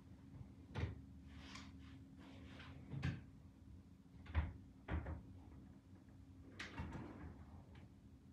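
Closet drawers and cupboard doors being handled while things are put away: about five separate knocks and clunks, with rustling between them, heard faintly from across the room.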